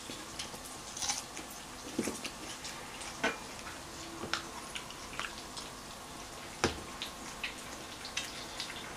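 Pork belly sizzling on a grill: a steady hiss with scattered sharp pops and clicks, a few louder ones about two, three and seven seconds in.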